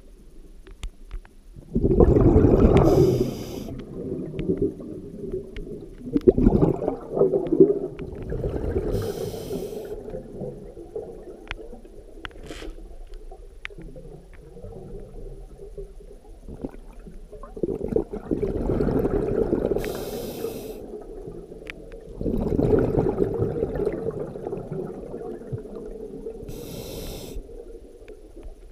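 Scuba diver breathing through a regulator underwater, heard through the camera housing: four bursts of exhaled bubbles, each followed by the regulator's short hiss on inhalation, a breath every several seconds.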